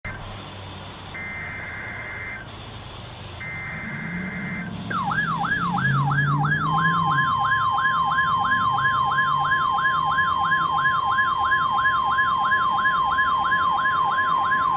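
NOAA Weather Radio test alert. First come two short bursts of EAS digital header tones, then a warbling siren tone that sweeps up and down about three times a second. About a second and a half later the steady 1050 Hz weather radio warning alarm tone joins it, and both keep sounding over light radio hiss.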